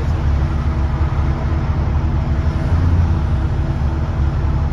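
Diesel engine of a London double-decker bus running, heard from inside the passenger saloon: a steady low drone that swells briefly about three seconds in.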